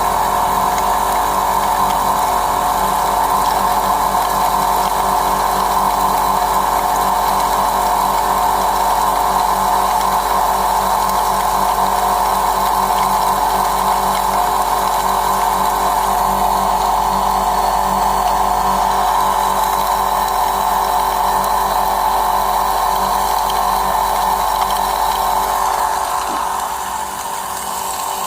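Homemade electric pepper-grinding mill running steadily under load, grinding peppercorns into powder. It dips slightly in level near the end.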